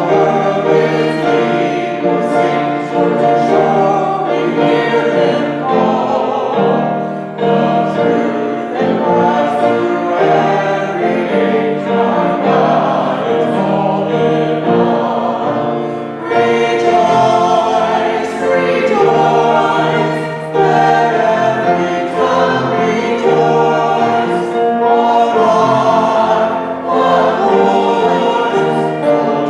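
Worship singing: a group of voices singing a congregational praise song together, with steady held notes.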